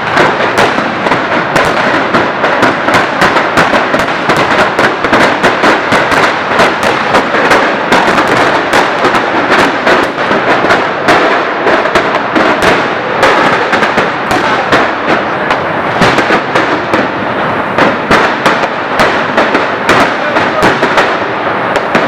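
A dense, continuous barrage of firecracker and fireworks bangs, many sharp cracks a second overlapping without a break, set off for the Greek Easter Resurrection night.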